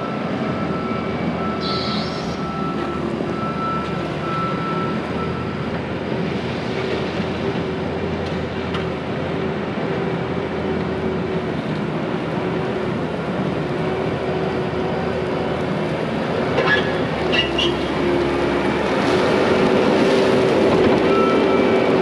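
Hyundai compact track loader's diesel engine running steadily as it pushes a bucket of dirt, with its tracks rattling. It gets louder near the end as the machine comes close.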